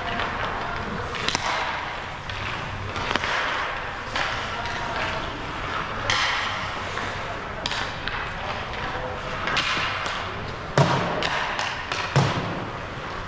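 Hockey skate blades scraping and carving on ice, with stick-and-puck clatter and two loud knocks near the end.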